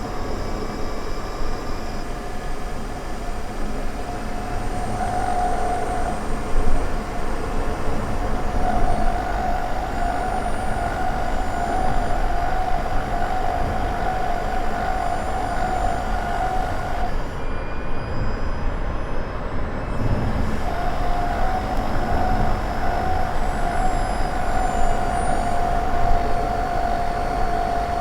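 Honda ZR-V engine-compartment noise picked up by a microphone inside the engine bay: a steady rumble with a clear whining tone on top that fades out briefly a few seconds in and again past the middle. The whine is the abnormal noise the owner suspects comes from the engine room.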